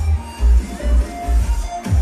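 Loud electronic dance music with a heavy bass line from a club's sound system. The kick drum drops out for a moment and comes back near the end.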